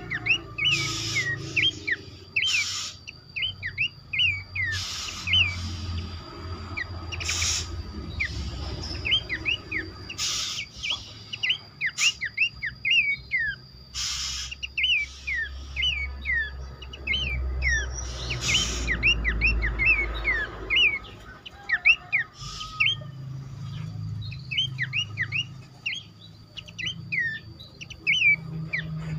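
Horsfield's babblers (pelanduk semak) calling together: a busy stream of short whistled notes, some sliding up and some down, overlapping one another, with sharp clicks now and then.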